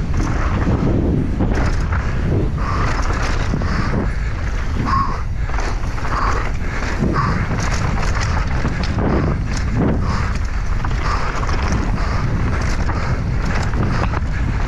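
Wind buffeting an action camera's microphone on a fast mountain bike descent, with a steady low rumble and frequent short knocks and rattles from the bike over rough ground.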